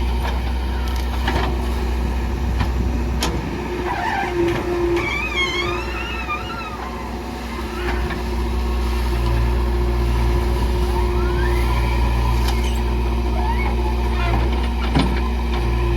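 JCB 3DX backhoe loader's diesel engine running under working load, easing off briefly in the middle. Scattered knocks and clanks from the digging and loading come over it, along with a brief warbling tone in the middle and a rising whine later on.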